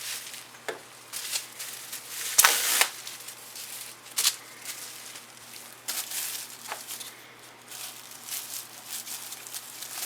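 Plastic wrap crinkling and rustling as it is wrapped around and handled with a small wooden box. Scattered sharp clicks and taps come through it, the loudest about two and a half seconds in.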